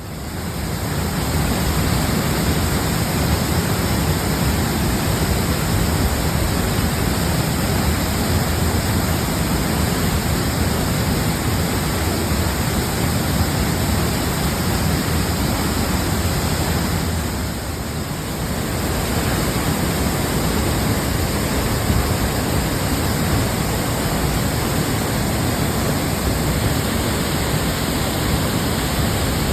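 Waterfall: a heavy torrent of water pouring with a steady, loud rush.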